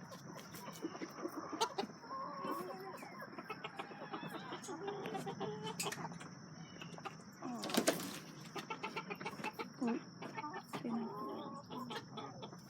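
Young roosters clucking and calling on and off, with scattered knocks and clatter from their portable pen being moved, the loudest about eight seconds in.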